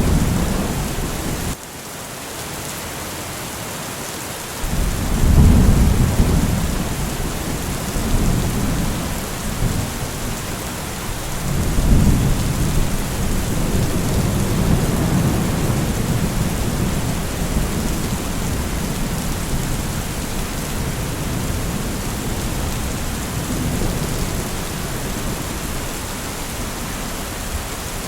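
Steady rain with rolling thunder: a rumble dies away abruptly about a second and a half in, a new peal of thunder breaks in around five seconds, and another rolls in around twelve seconds and rumbles on for several seconds under the continuous rain.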